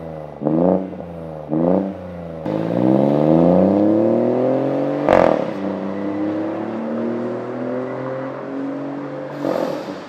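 BMW Mini Clubman F54's 1.5-litre turbocharged three-cylinder engine through a valved catback exhaust with the valve open, revved in two short blips and then accelerating hard away. About five seconds in there is a sharp crack at the upshift, and the pitch drops and climbs again as the car pulls away.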